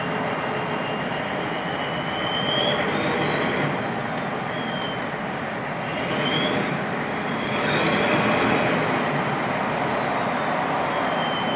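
Turbocharger whistle on a turbocharged 7.3 IDI V8 diesel, a thin high whine that swells, rises and falls several times over steady engine and road noise.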